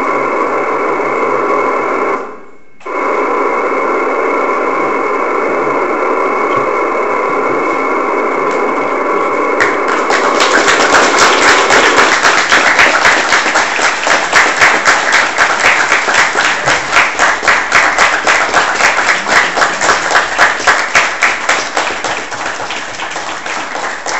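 Steady hiss of FM radio static from the amateur receiver on the ISS downlink, with faint steady tones in it and a brief cutout about two seconds in. About ten seconds in, an audience starts applauding, with fast continuous clapping.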